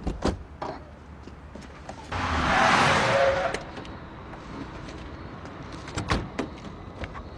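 A car's noise swells and fades over about a second and a half. A few sharp knocks come about six seconds in, as the door of an SUV is handled.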